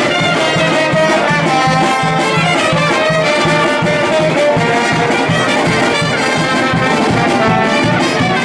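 Street brass band playing a lively tune: trumpets and trombones carry the melody over a sousaphone bass line pulsing about twice a second, with a saxophone in the band.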